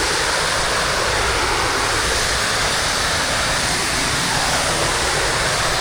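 Waterfall water rushing in a steady, even wash of noise.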